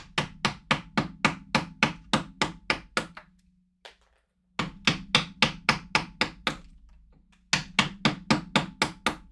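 Mallet striking a carving chisel or gouge into wood in quick, regular blows, about four a second. The blows come in three runs with short pauses between them.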